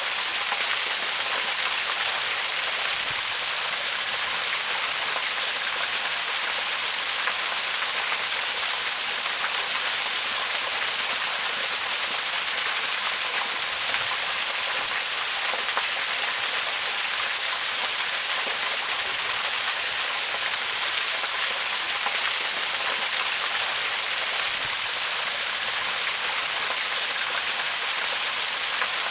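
Waterfall: a steady, unbroken hiss of falling water, bright and high in pitch, with no distinct drops or changes.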